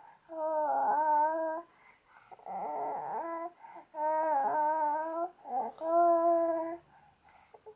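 A baby fussing, making four drawn-out vocal cries of about a second each with short pauses between them.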